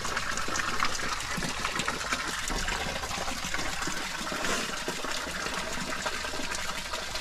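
Water running and splashing steadily in a canyon stream after monsoon rain, an even rushing hiss with small splashes through it.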